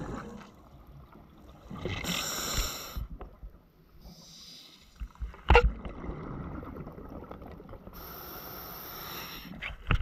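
Underwater sound of a diver breathing: two long bubbling, hissing breaths, about two seconds in and again near the end, with a fainter one between them, over a low watery rumble. A single sharp knock comes about halfway through.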